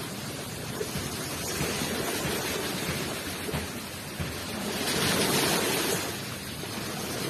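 Ocean waves rushing onto the shore, a steady wash of surf that swells as a wave breaks about five seconds in.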